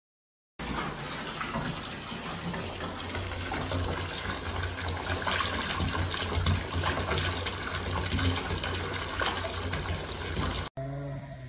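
Bath mixer tap running full, water gushing into a partly filled bathtub; it starts suddenly after a short silence and cuts off near the end.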